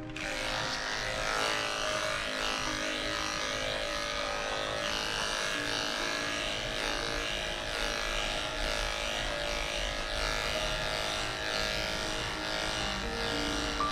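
Corded electric dog-grooming clippers switching on and running steadily, buzzing as the blade shaves through a severely matted coat.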